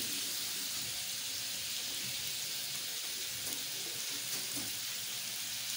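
Potato chunks sizzling in hot oil in a grill pan, a steady hiss.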